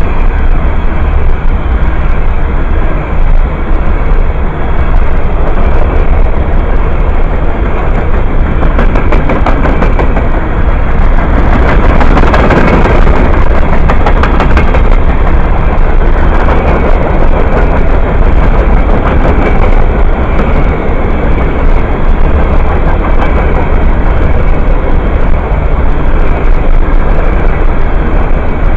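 Freight train of open-top hopper cars rolling past close by: loud, steady clatter and rumble of steel wheels on rail, with frequent sharp clicks.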